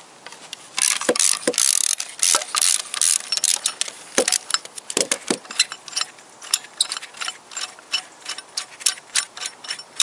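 Ratchet wrench clicking as a bolt on the engine block is loosened: a fast run of ratcheting a second or so in, then slower, separate clicks several times a second, with a few metal knocks in between.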